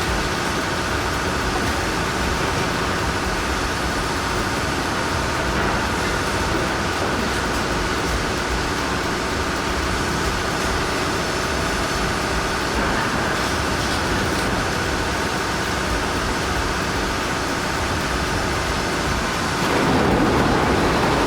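Steady running noise of heavy vehicles or machinery engines, unchanging, growing a little louder near the end.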